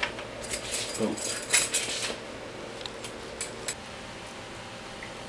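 Handling noises: rustling and light clinking of items and clothing being picked up, densest in the first two seconds, with a few faint clicks shortly after the middle.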